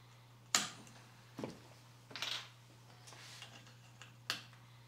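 A few sharp plastic clicks and a short rustle as hands handle the 3D printer's display board and its plastic bracket, with a steady low hum underneath.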